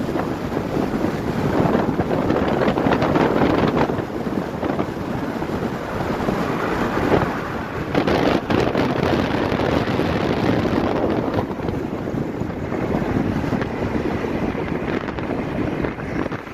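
Heavy wind buffeting on the microphone over the rushing noise of a car on the move.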